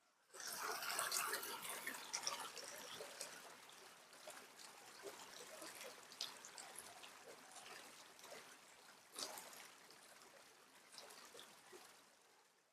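Mountain creek water rushing and splashing over rocks, with a crackling spatter of small splashes; it fades in just after the start, is loudest in the first couple of seconds, and tapers off near the end.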